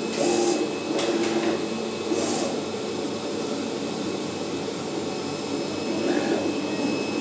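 Vulcan FC-500VC digital flatbed cutter running, with a steady whirring hum throughout. Over it come short rising-and-falling motor whines as the cutting head traverses, and two brief hissy bursts about half a second and two seconds in.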